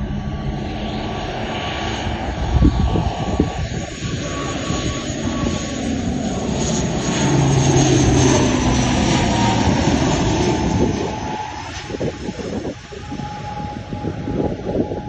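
Wings Air ATR turboprop airliner on its landing approach: engines and propellers running steadily with a high whine, louder toward the middle and easing off over the last few seconds.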